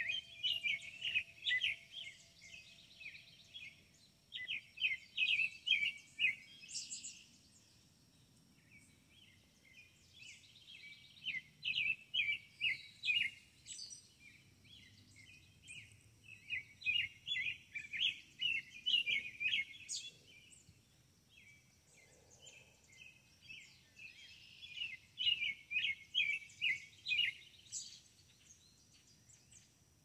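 A songbird singing in repeated phrases of rapid chirps, each phrase a couple of seconds long with short pauses between, over faint steady outdoor background noise.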